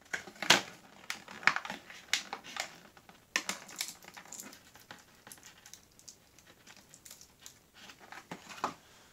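Stiff clear plastic blister packaging crackling and crinkling as it is handled. A run of sharp crackles comes in the first few seconds, then fainter rustling, with a few more crackles near the end.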